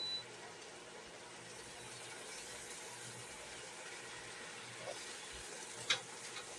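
Fresh spinach sizzling steadily in a hot stainless-steel pan as it wilts down, stirred with a silicone spatula, with one light click near the end.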